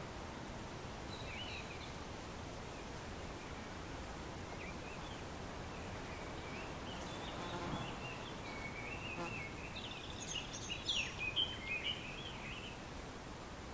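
Small songbirds chirping and twittering over a steady background hiss of outdoor ambience, the calls scattered at first and then busier and louder for a couple of seconds about ten seconds in.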